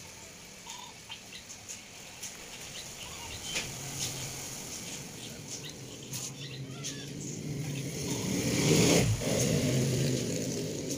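An engine's hum grows louder, peaks about nine seconds in and then fades, over scattered light ticks.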